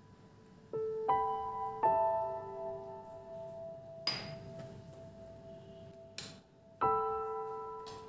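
Background piano music: slow single notes and chords that ring out and fade, with a couple of light knocks in between.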